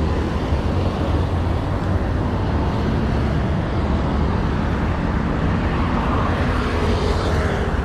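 Steady rumbling noise of a mountain bike ride on the camera's microphone, wind and tyres rolling over the trail, with a hissing swell about six to seven seconds in.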